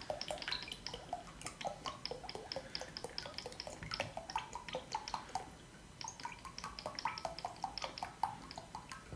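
MCT oil trickling and dripping from a plastic bottle into a glass measuring cup: a faint, irregular run of small drips and glugs, with a faint tone that rises in pitch over the last few seconds.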